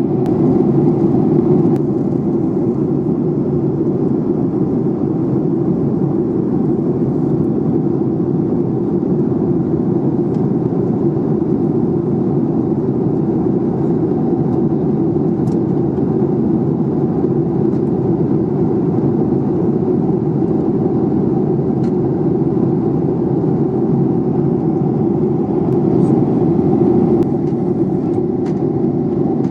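Airliner cabin noise in flight: a steady, loud low rush of jet engines and airflow, with a few faint clicks.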